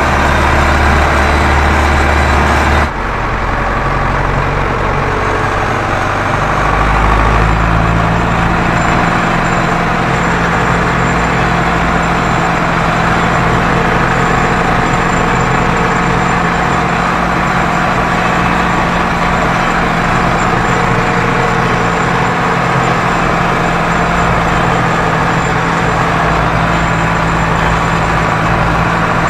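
Ursus 902 tractor's diesel engine running, heard from inside the cab while the tractor hauls two trailers on the road. The engine note changes abruptly about three seconds in, climbs over the next few seconds, then holds a steady drone.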